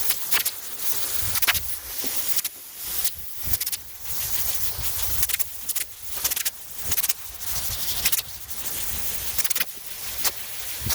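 Hand sanding block with sandpaper stroking back and forth over a car hood coated in high-build primer: a rasping hiss in repeated strokes, about one or two a second, with small knocks where the strokes turn.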